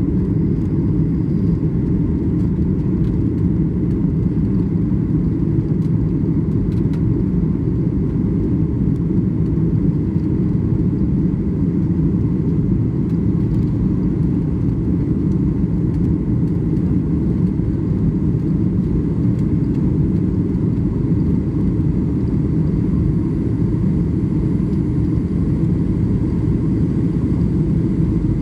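Steady low rumble of a Boeing 737 MAX 8's CFM LEAP-1B engines and airflow heard from inside the passenger cabin.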